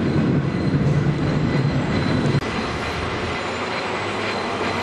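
Tram running along its rails: a steady clatter of running noise with a faint high whine above it. The low hum steps down in pitch and the level eases a little about halfway through.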